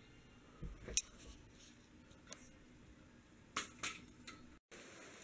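Venetian blind slats clicking and rattling as a hand pushes them apart: a few separate sharp clicks, the loudest about a second in and two close together about three and a half seconds in.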